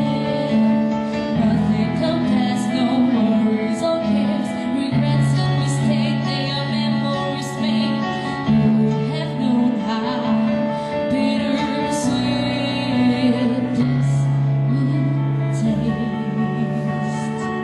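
A woman singing a slow pop ballad live into a microphone, amplified through a PA, over sustained keyboard chords that change every couple of seconds.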